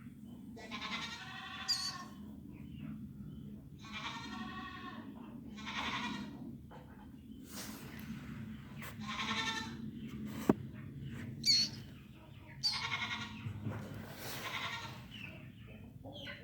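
Killdeer chick calling over and over, a call every second or two, some ending in a sharp high chirp. A single sharp click about ten seconds in.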